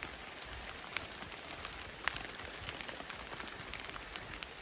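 Rain falling on the forest, a steady patter with a few separate drops ticking.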